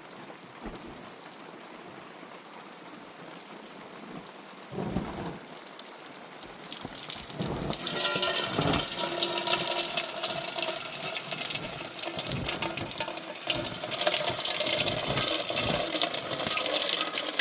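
Heavy rain falling, much louder from about seven seconds in, with a brief low rumble about five seconds in.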